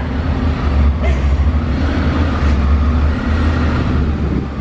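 Motorcycle engine running with a steady low drone.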